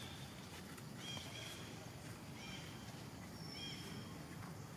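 Baby macaque giving several high-pitched squealing cries about a second apart, each rising and then falling. These are distress cries as it struggles to pull free of an adult that holds it by the arm.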